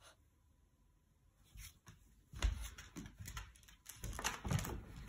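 A French bulldog puppy's paws and claws on a hardwood floor as it runs with a toy: near quiet for the first couple of seconds, then an irregular patter of taps and soft thumps.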